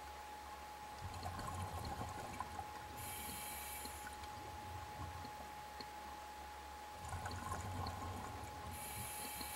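Scuba diver breathing through a regulator underwater: a bubbling exhalation with a low rumble about a second in, then a short high hiss of inhalation, and the same again from about seven seconds in. A faint steady whine and small scattered clicks run underneath.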